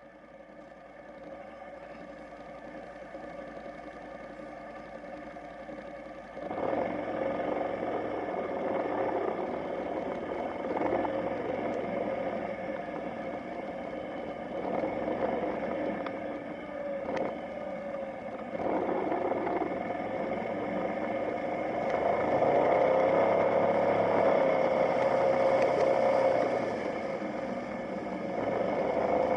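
Motorcycle engine running, fading in at the start and getting louder about six seconds in and again near the end, with small rises and falls in pitch.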